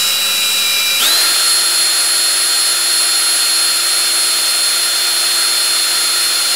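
Electric drill spinning a brake cylinder hone in the bore of a 1973 Honda CB750 front brake caliper, honing out corrosion, burrs and pitting. The motor runs with a steady whine that steps up in speed about a second in.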